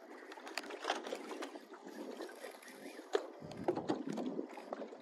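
Small waves lapping and slapping against a boat's hull, with scattered light ticks.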